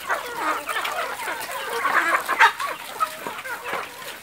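A flock of free-range chickens clucking all together, many short overlapping calls, the noise of hungry hens crowding round to be fed.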